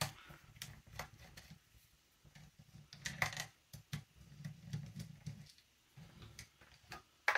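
Scattered small clicks and knocks, with light rubbing between them, as hands and a tool handle work the plastic and metal parts of an airsoft rifle during reassembly.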